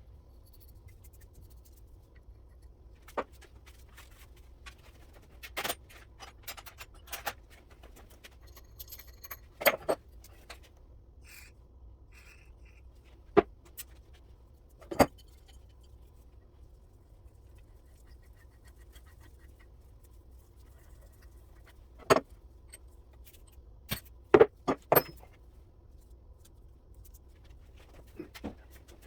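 Scattered sharp metallic clinks and knocks of Kurt vise parts being handled and set down, with a few louder strikes in small clusters.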